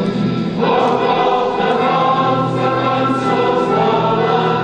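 Many voices singing a song together, with held notes; a new phrase comes in about half a second in.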